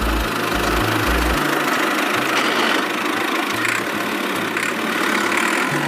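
Tractor engine sound effect running steadily.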